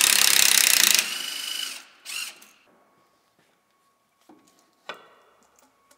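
Cordless power driver running hard for about a second to back off the bolt of a spring-loaded T-bolt hose clamp, then a lighter whirr of the motor and a second short run. After that come a few faint clicks and knocks.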